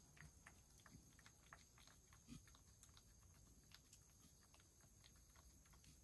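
A cat lapping from a shallow dish: faint, quick, irregular wet clicks of its tongue, several a second.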